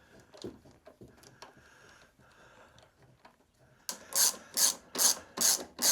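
A socket ratchet wrench tightening a bolt. About four seconds in, after some faint handling, it starts a run of quick back-and-forth strokes, the pawl rasping about two or three times a second.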